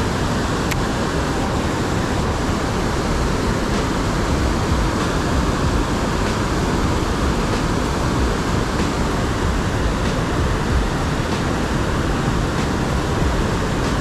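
Steady roar of rushing river water, even and unbroken throughout.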